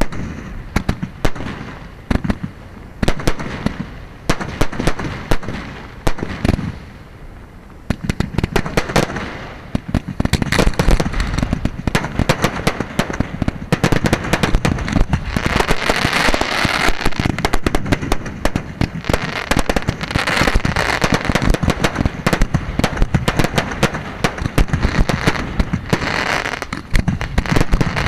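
Fireworks display shells launching from their mortars and bursting overhead. For the first several seconds the bangs come separately, a second or so apart. From about ten seconds in they pile into a dense, continuous barrage.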